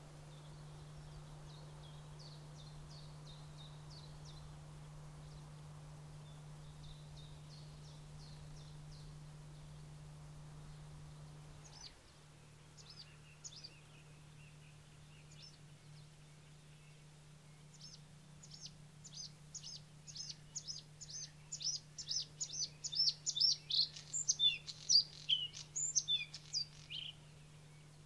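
Bluethroat singing. Scattered single notes build from about two-thirds of the way through into a rapid, loud run of varied high notes. Before that, faint high bird calls are heard over a steady low hum.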